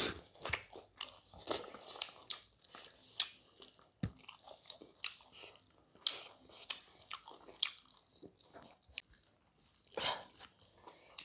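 Close-miked chewing and crunching of cooked chicken, with irregular wet clicks and crunches several times a second.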